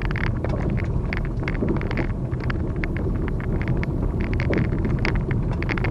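A vehicle driving on a dirt road, heard from inside the cabin: a steady low road rumble with many irregular small clicks and crackles from the tyres on the dirt surface.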